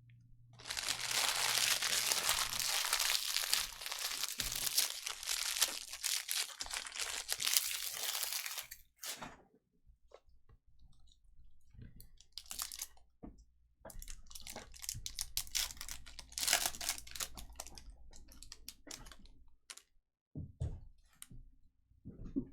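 Foil trading-card pack wrappers being torn open and crinkled: a dense crackling for about eight seconds, then, after a short pause, a longer spell of broken, intermittent crinkling.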